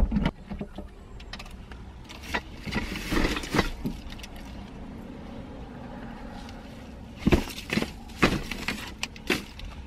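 Grocery shopping being loaded into a car's open rear hatch: scattered knocks and rustles of bags and items, one group a couple of seconds in and another near the end, over steady low background noise.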